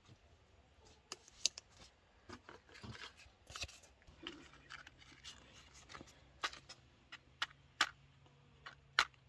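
Dry wooden kindling splinters knocking and clattering as they are set by hand into an iron fire bowl: a series of sharp, irregular knocks with light rustling of wood between them.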